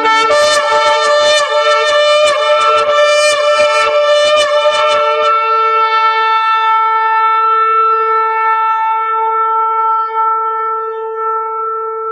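Shofar (ram's-horn trumpet) blown: for about five seconds a rapid run of short broken blasts, about four a second, then one long steady blast that is held and fades out near the end.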